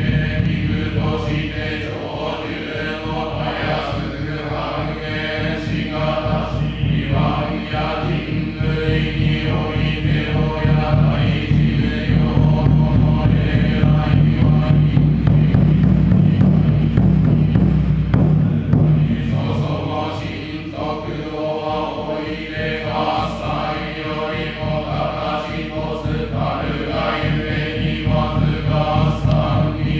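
Voices chanting a ritual prayer in unison over a steady low drone. The chanting eases for a moment about twenty seconds in, then picks up again.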